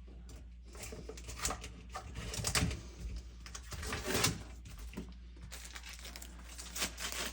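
Hands working at a new well-water filter cartridge with a pocketknife, peeling off stickers and wrapping: light scraping, crinkling and clicks, with a few louder knocks about two and a half and four seconds in, over a steady low hum.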